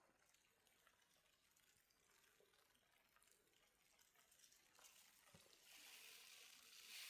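Near silence: a faint steady hiss, with a soft high-pitched rushing noise rising over the last second or so.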